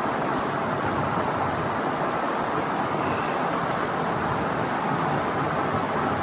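Electric fan running steadily on its high setting: an even rushing hiss.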